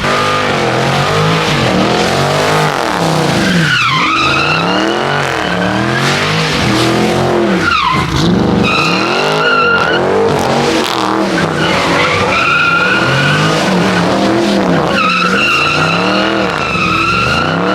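Car engine revving up and down over and over while the tyres squeal as the car slides on wet pavement. The squeal is loudest through the second half.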